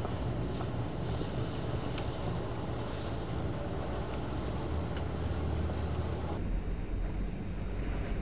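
Low steady rumble of a passing boat's engine across the water, with wind on the microphone and a few faint sharp clicks. About six seconds in the higher hiss falls away, leaving a deeper rumble.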